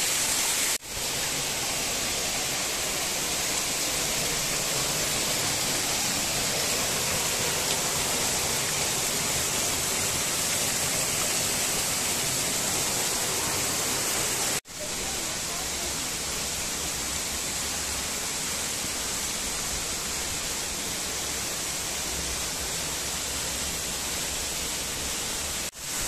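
Steady rush of water falling down a waterfall's thin cascades over a rock face, the flow low at the end of summer. The sound cuts out for an instant three times: near the start, about halfway, and near the end.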